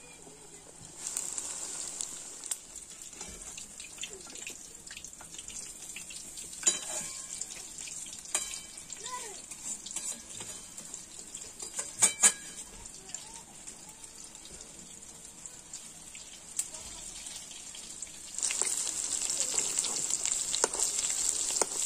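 Battered chicken pakoras deep-frying in hot oil in a wok, a steady sizzle, with a few sharp clinks of a metal spatula against the pan. The sizzle grows louder about eighteen seconds in.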